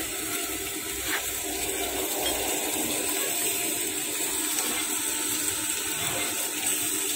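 Steady rushing, water-like noise with a faint hum underneath: machine-shop background noise, with one faint knock about a second in.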